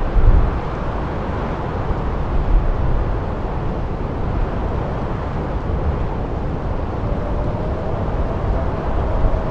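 Blizzard wind blowing steadily, with deep rumbling gusts. A faint, thin howl comes in near the end.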